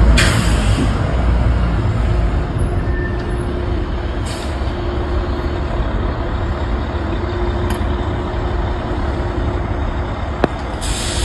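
Steady low roar of a large underground gas fire burning, with a faint steady hum underneath and no explosion.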